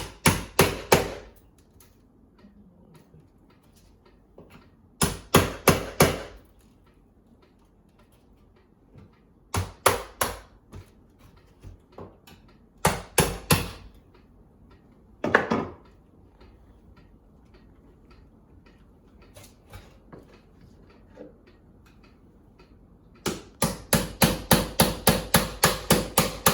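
Hammer tapping on wood in short bursts of three or four quick blows, then a run of about a dozen blows near the end, about four a second, working a window stop loose.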